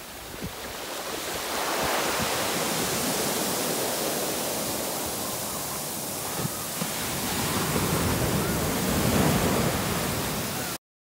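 Ocean surf breaking and washing up a sandy beach, swelling about two seconds in and again near the end. The sound cuts off suddenly just before the end.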